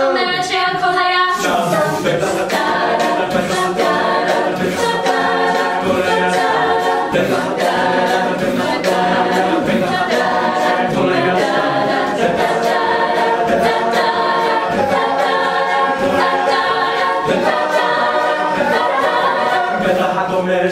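Mixed-voice a cappella group singing a wordless instrumental section in close harmony, with a steady beat kept by vocal percussion.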